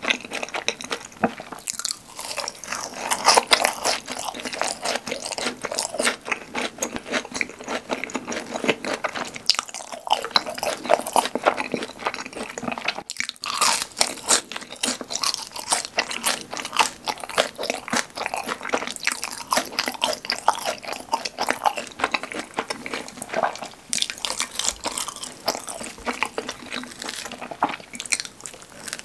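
Close-up crunching and chewing of crisp fried cheese balls dipped in creamy sauce, a dense run of irregular crackles with brief pauses between bites.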